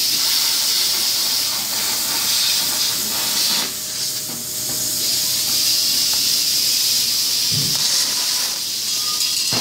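Plasma cutter torch cutting through sheet steel, giving a steady, loud hiss of its air and arc.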